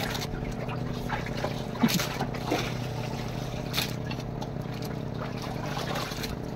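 Boat engine running steadily at an even pitch, with water lapping. A sharp knock about two seconds in and a lighter one near four seconds.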